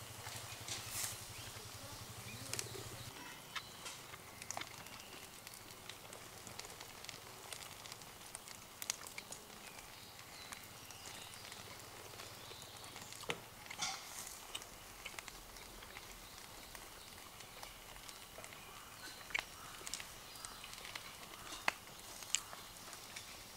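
Small wood campfire crackling, with scattered sharp snaps and pops at irregular intervals. A low steady hum stops about three seconds in.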